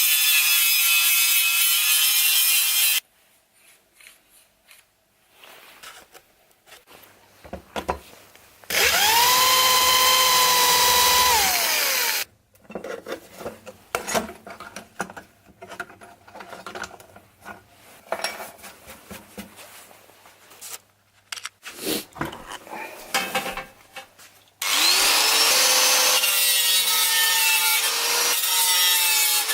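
A power tool run in three bursts, each lasting a few seconds: a loud cutting whine that rises as the tool spins up and falls as it winds down. Between the bursts come quieter scraping and clicking from hand work on the metal.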